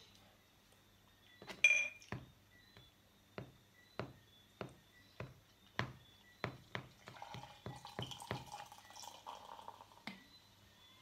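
Beer poured from a stubby glass beer bottle into a glass. A sharp glassy clink comes about two seconds in, then a run of glugs from the bottle, about two a second and coming faster later on. Near the end the stream of beer is heard filling the glass.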